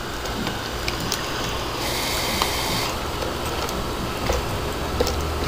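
Light clicks and taps from hands handling a small homemade CO2 model engine and its tubing, over steady background noise with a low rumble. A brief hiss starts a little under two seconds in and lasts about a second.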